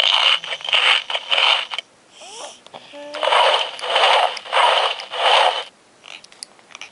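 Rhythmic swishing from a toy sound book's small speaker, like a shaker: three quick swishes, a short pause with a faint gliding tone, then four more.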